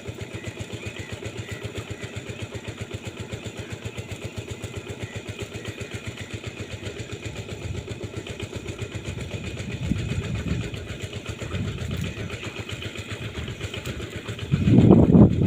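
A small engine running steadily with a fast, even pulse, then louder, uneven low rumbling near the end.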